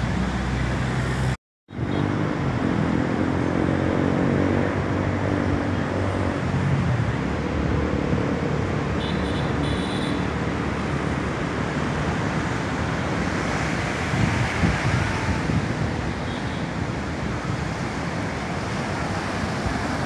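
Steady roar of heavy sea surf and wind, mixed with road traffic running past. The sound cuts out completely for a moment about a second and a half in.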